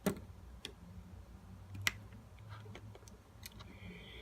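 Sharp clicks and light taps from small phone parts and tools being handled during an iPhone battery replacement: one click right at the start, another about two seconds later, and fainter ticks in between, over a faint low hum.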